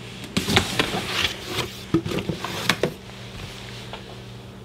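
Cardboard mailer box opened by hand: scraping and handling noise from the lid and flaps, with a few sharp knocks, for about three seconds, then quiet apart from a low steady hum.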